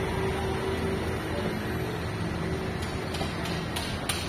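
City street traffic noise: a steady low engine hum from vehicles idling and passing close by. Near the end a quick, regular ticking starts, about three clicks a second.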